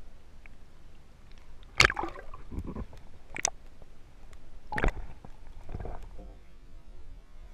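Water heard through a camera's waterproof housing held underwater: a low, muffled sloshing and gurgling, broken by three sharp water sounds about two seconds in, at three and a half seconds, and near five seconds.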